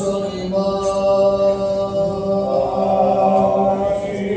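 Greek Orthodox Byzantine chant: unaccompanied male singing in slow, drawn-out notes that move gently in pitch, over a steady low note held beneath the melody.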